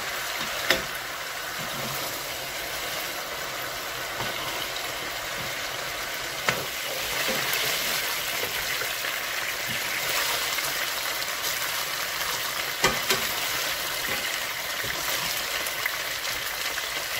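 Yoghurt-marinated chicken pieces sizzling steadily in oil in a non-stick frying pan as their juices cook off and they brown. A few sharp clicks of a slotted spatula against the pan as the pieces are stirred.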